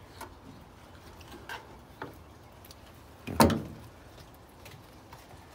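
Handling noises while cleaning fish on a cutting board: a few faint clicks and one sharp knock about three and a half seconds in.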